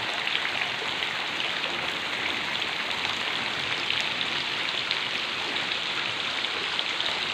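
Heavy rain falling steadily without wind, a dense even hiss of drops hitting the ground.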